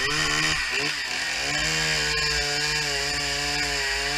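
Gasoline chainsaw running at full throttle, cutting into a log for the first rough cuts of a bass carving. The engine pitch dips and recovers under load for the first couple of seconds, then holds steady.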